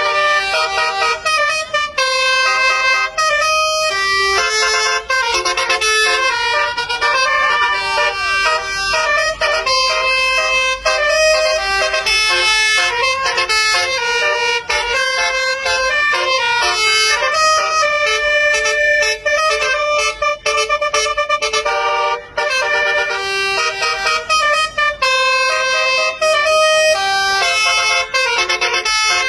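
Basuri-type telolet bus horn playing a melody: several horn tones sound together and change note every fraction of a second, with a few brief breaks.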